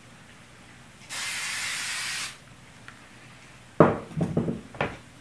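Aerosol spray adhesive sprayed in one steady hiss lasting about a second, tacking the layup cloth to the mold. A few sharp knocks and rustles follow near the end.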